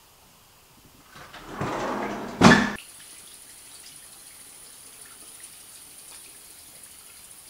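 Bathroom sink tap running. A loud rush of water starts about a second in, swells, and cuts off abruptly near three seconds. A quieter, steady flow follows.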